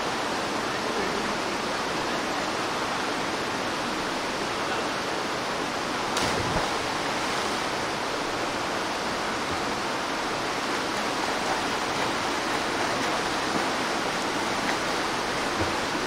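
Steady rush of a mountain stream's rapids, with a brief knock about six seconds in.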